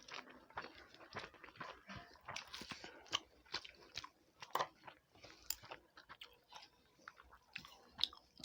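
Close-miked eating sounds: chewing and biting on food, with soft, irregular crunches and clicks.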